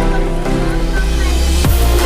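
Electronic dance music with heavy bass and a steady beat, in the style of dubstep.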